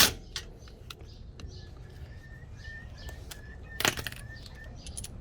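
A few sharp metallic clicks from a hand tool, the loudest about four seconds in, over a faint series of short high bird chirps, about two a second, in the background.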